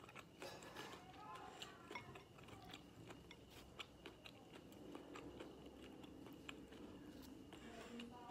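A person chewing braised pig intestine with the mouth, making many small wet clicks and smacks.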